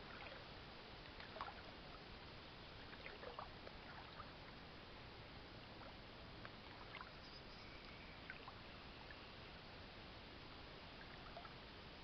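Near silence: faint water lapping and trickling over a steady low hiss, with a few brief faint chirps scattered through.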